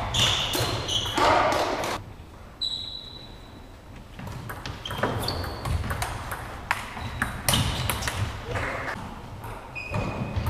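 Table tennis ball bouncing and clicking off the table, bats and floor, each bounce a short, clear high ping, with scattered sharp clicks of play; a loud burst of voices in the first two seconds.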